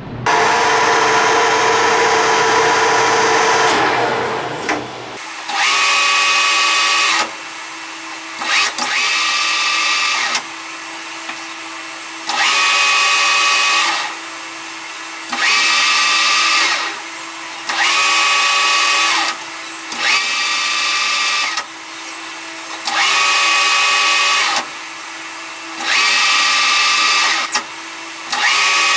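Metal lathe cutting an aluminum tube with a carbide insert tool: a continuous cutting noise for about the first four seconds. Then come about nine thread-cutting passes, each a second or two of cutting noise with a steady whine, separated by short pauses, over a steady motor hum.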